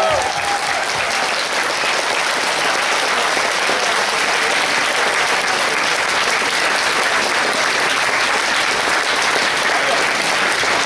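Audience applauding steadily, a dense sustained clapping called for as a huge applause in thanks.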